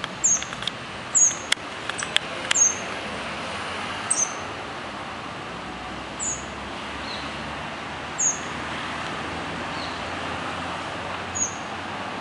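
A small bird giving short, very high chirps that slide downward, repeated every second or two, about eight in all. A few sharp clicks come in the first two and a half seconds, over a steady background hiss.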